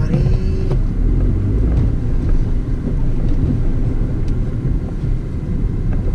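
A car being driven along a road, with a steady low rumble of engine and road noise.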